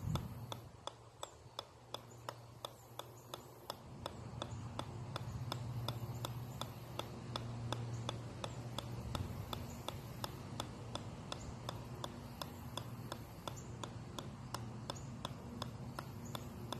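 A golf ball bouncing off the steel head of a 4-pound sledgehammer, a sharp click about three times a second in an even rhythm.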